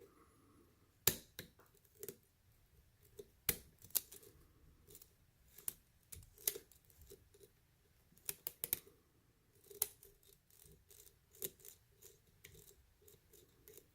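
Faint, irregular metallic clicks and ticks of a lock pick working the pins of a pin-tumbler lock under light tension during single-pin picking, with a louder click now and then as a pin is pushed or sets.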